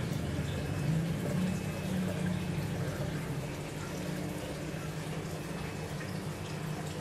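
Aquarium filter pump running with a steady hum and a constant trickle of water.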